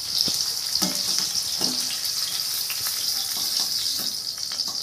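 Whole bitter gourds (karela) frying in hot oil in a steel pan: a steady sizzle with small crackles. The sizzle is strong because of the water still in the steamed, squeezed gourds.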